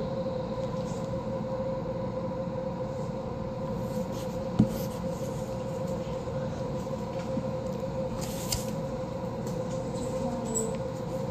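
Steady background hum with a pitched drone. There is one sharp tap about four and a half seconds in, from spoons scraping a dish during eating.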